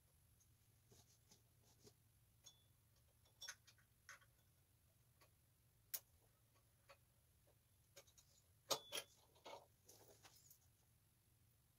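Faint, scattered metallic clicks and taps of a roller drive chain and small metal parts being handled on a mini bike. There is a single sharp click about six seconds in and a couple of louder knocks about nine seconds in.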